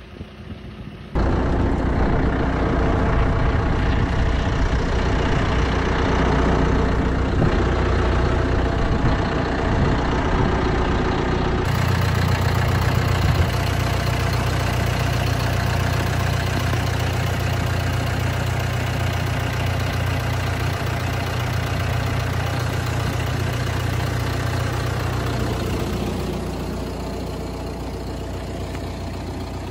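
John Deere 5065E tractor's diesel engine running steadily, heard from the driver's seat. It comes in about a second in and eases to a lower level near the end.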